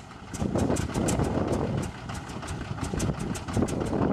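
CAC Wirraway's Pratt & Whitney R-1340 Wasp nine-cylinder radial engine being turned over by its starter, about six or seven even ticks a second as the propeller turns slowly, without firing: the engine has not yet caught.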